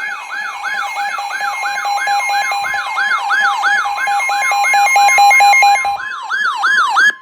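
Loud emergency alert tone: a fast wailing siren that sweeps up and down about three times a second over steady, piercing alarm tones. One of the steady tones starts pulsing, then drops out near the end, and the whole alert cuts off abruptly.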